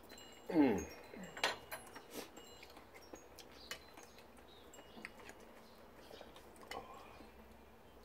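Metal spoon and chopsticks clicking against ceramic soup bowls while eating, a few sharp clicks. About half a second in there is a short, falling 'mm'-like voice sound, and faint high tinkling tones sound in the background.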